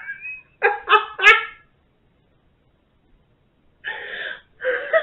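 A woman laughing hard: three quick high-pitched bursts about a second in, a pause of about two seconds, then laughing again near the end.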